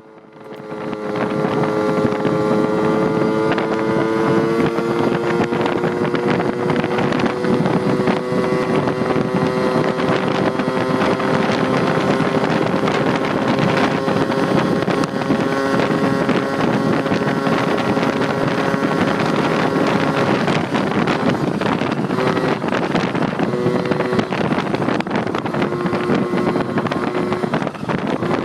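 Honda Urban Express moped's 49cc two-stroke engine, fitted with an expansion pipe, pulling hard under full throttle. Its buzzing note climbs over the first few seconds and then holds high, with wind rushing over the microphone. About twenty seconds in, the steady note breaks off and comes and goes.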